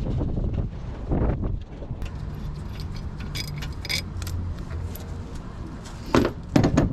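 Light metallic clinking and jingling of small metal parts and tools being handled, then two louder knocks near the end, over a low wind rumble on the microphone.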